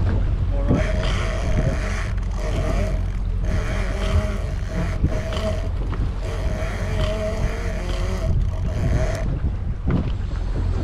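Steady low rumble of the boat's outboard engines, with wind on the microphone. Over it, a wavering whine comes and goes several times in stretches of one to three seconds.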